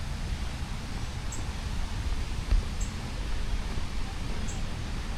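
Outdoor ambience on a wooded trail: a steady low rumble on the microphone, with a faint, short, high double chirp repeating about every one and a half seconds.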